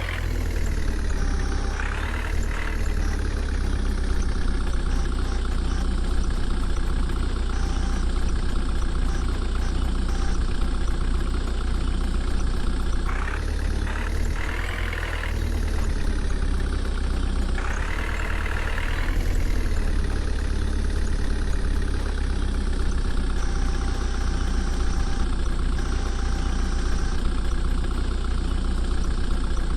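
Heavy diesel engine of a tractor-recovery machine running steadily at a low, even rumble. It revs up briefly and drops back a few times, about two seconds in, around the middle and again a few seconds later.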